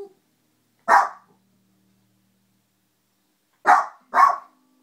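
Small dog barking: one sharp bark about a second in, then two quick barks close together near the end.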